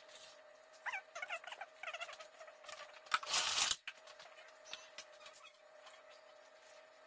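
A metal fork squeaking and scraping through a soft baked potato in aluminium foil, with a brief loud rustle of the foil about three seconds in and a few light clicks of the fork.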